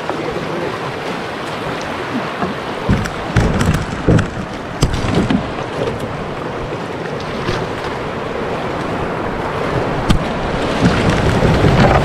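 Rushing whitewater around an open canoe running a river rapid, with paddle strokes splashing and knocking, loudest about three to five seconds in. The rush grows louder near the end as the bow drops into the foaming rapid.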